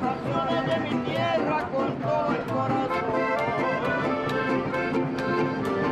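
Background music with a steady beat of about two strikes a second under a melody.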